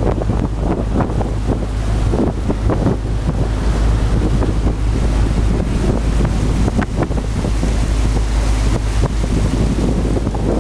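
Motorboat under way: a steady engine drone under the rushing of the wake, with wind buffeting the microphone.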